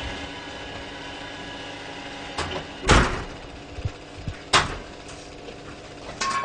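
Several sharp knocks and bangs over a steady background hum. The loudest comes about three seconds in, another about a second and a half later, and a smaller one near the end.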